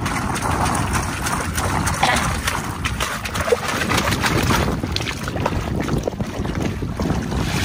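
Oyster shells clicking and knocking against each other as they are handled and sorted, over a steady low rumble.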